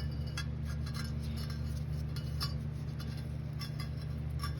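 Light metallic clinks and taps, scattered and irregular, over a steady low hum.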